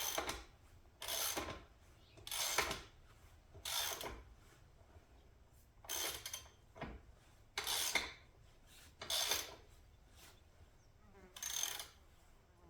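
A wrench turning the chain adjuster bolt at the rear axle of a Grom-clone pit bike: about eight short rasping strokes, a second or so apart, as the bolt is worked to draw the wheel back and tighten the chain.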